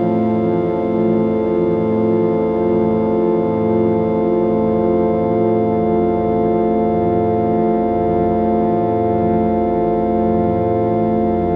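Synthesized 741 Hz 'solfeggio' healing-frequency drone: a chord of sustained, organ-like tones held steady, with the low notes beating in a slow, even pulse about every second or two.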